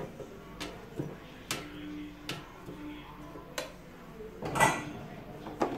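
Metal kitchen tongs clicking and tapping against a nonstick air fryer basket as potato wedges are turned over: a scattering of sharp, irregular clicks, with a louder clatter about four and a half seconds in.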